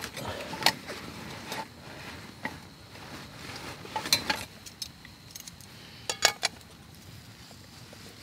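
Metal cookware and utensils clinking and knocking during camp cooking: a string of sharp clicks, with the loudest strikes about four seconds in and again around six seconds in.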